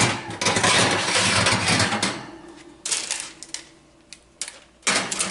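Wire oven rack scraping and rattling on its metal runners as it is pulled out, then several separate sharp metal clinks as the baking tray goes onto the rack.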